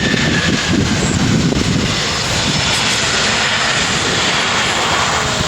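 Boeing 747's four jet engines heard from the ground as it lands, a loud, steady rushing noise with a low rumble underneath.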